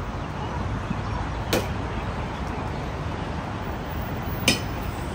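Busy city street ambience with a steady low traffic rumble, broken twice by a brief sharp sound, about a second and a half in and again near the end.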